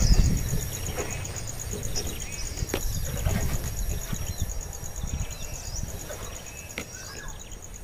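A steady, rapid high-pitched insect trill, with short bird chirps scattered through it and a low rumble that is loudest near the start and fades.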